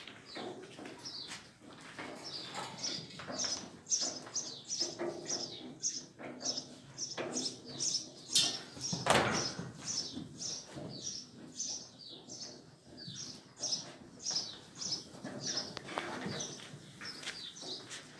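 Small birds chirping steadily, with short high chirps two or three times a second and a single louder, brief burst of noise about nine seconds in.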